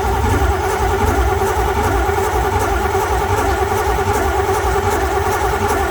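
Starter cranking the Camaro's 383 stroker V8 in a steady, even rhythm without the engine catching; the crew suspects no fuel is reaching it.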